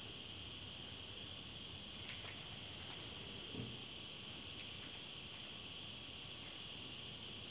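A steady, high-pitched insect chorus, with a faint low thump about three and a half seconds in.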